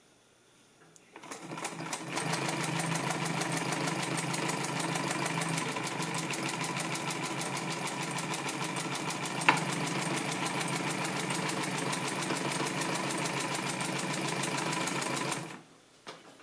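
Juki LU-562 walking-foot (unison feed) industrial sewing machine stitching through four layers of denim. It speeds up over about a second, runs at a steady, rapid, even stitch rate and stops near the end. There is a single sharp click about halfway through.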